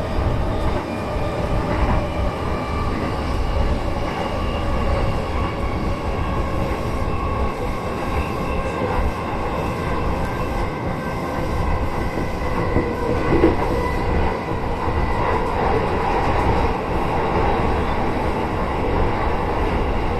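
Electric commuter train running on the rails, with a steady rumble of wheels and running gear. Several whining motor tones drift slowly in pitch as the speed changes.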